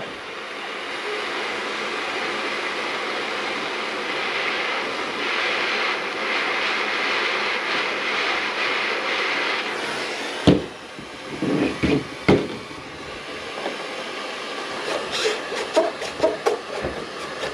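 Steady hiss of a heating tool held on an RC boat's stuffing tube to soften the epoxy holding it. It cuts off about ten seconds in with a sharp knock, followed by several clunks and knocks as the hot tube is worked loose.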